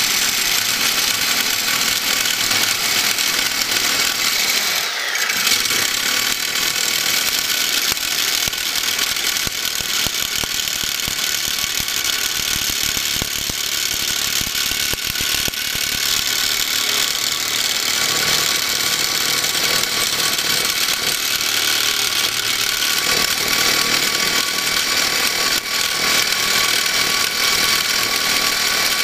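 Reciprocating saw running steadily, its carbide grit blade grinding through a piece of stainless steel held in a bench vise. There is a brief break in the low end about five seconds in.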